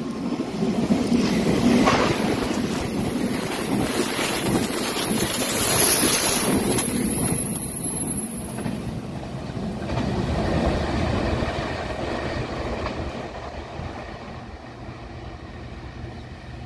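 Puyuma Express tilting electric multiple unit (TEMU2000) running through a station at speed without stopping: the rumble of its wheels on the rails builds to a peak about six seconds in, with a high whine over it, then fades as the train runs away.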